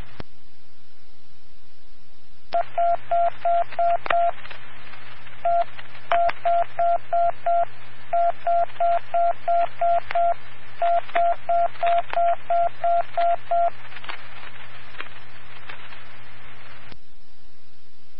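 Fire alarm box signal sent over a fire dispatch radio channel: a single-pitched beep repeating about three times a second in groups, one beep, then five, then seven, then nine, tapping out box number 1579. A shorter group of beeps comes first, with steady radio hiss and a low hum underneath.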